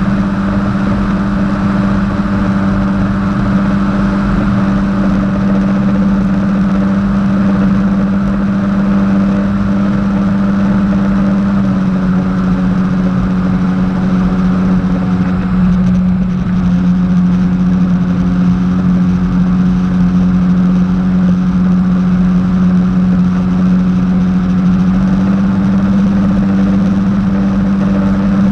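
Jet ski engine running at a steady speed, a strong even drone over a rushing noise, its pitch shifting slightly partway through.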